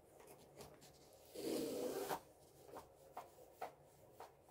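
A rolled diamond painting canvas rubbing and sliding as it is pushed into its box, one longer scrape about a second and a half in, followed by a few light taps.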